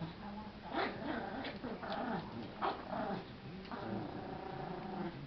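A schnauzer and a Yorkshire terrier growling at each other as they tussle over a toy: repeated wavering growls with several short sharp sounds among them in the first three seconds.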